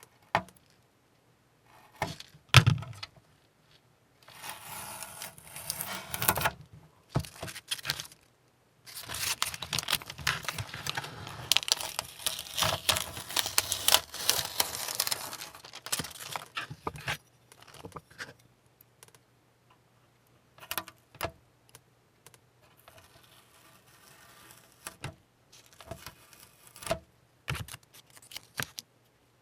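Masking tape being peeled off a painted plastic model ship hull: stretches of tearing and crinkling tape, the longest running several seconds in the middle, with scattered small clicks and taps as the model and tape are handled.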